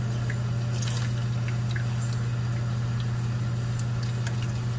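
Lemon juice trickling into a pot of broth as a lemon is pressed in a metal hand-held citrus squeezer, with a few faint clicks. A steady low hum is the loudest sound.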